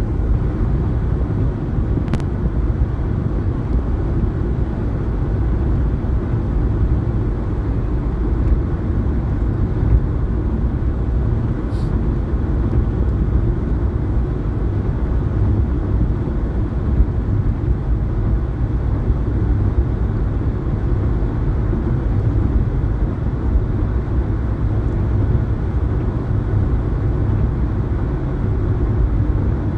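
Steady road and tyre noise heard inside a moving car's cabin, low and rumbling, with two brief clicks about two seconds and twelve seconds in.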